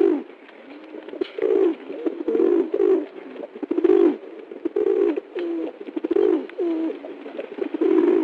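A flock of feral pigeons (rock doves) cooing: low, rolling coos from several birds, one after another and overlapping.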